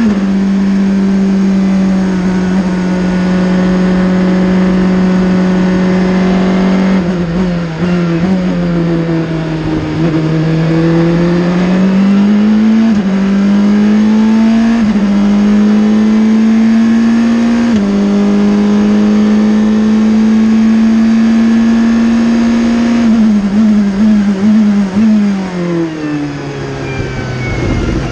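Ligier JS P2 LMP2 prototype's engine heard from inside the cockpit, running hard on a lap over wind and road noise. The note holds steady at high revs for long stretches, falls with downshifts about seven seconds in and climbs back, steps through quick upshifts around 13, 15 and 18 seconds, and near the end drops through a burst of rapid downshifts to low revs before rising again.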